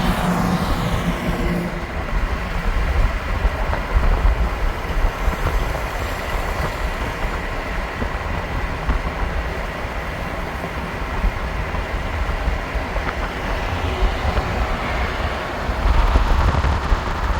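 Freight train rolling past: a steady rumble and rattle of cars on the rails, with a faint steady high whine throughout.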